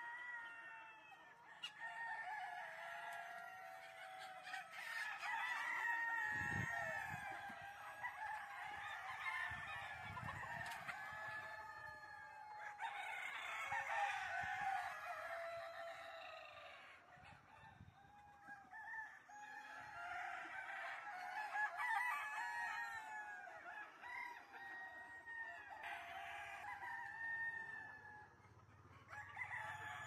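A flock of chickens clucking and calling over one another, with a rooster crowing.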